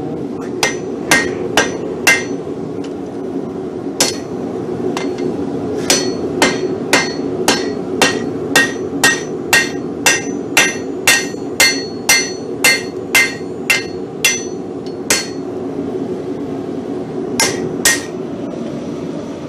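Hand hammer striking hot steel on an anvil, each blow ringing out: a few blows at the start, then a steady run of about two blows a second, then two more blows near the end.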